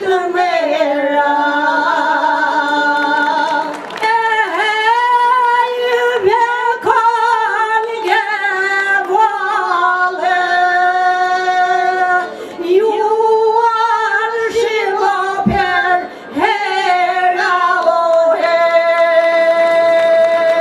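Two women singing an Albanian folk song together in long, held, ornamented notes, with a frame drum struck a few times. The song closes on one long held note near the end.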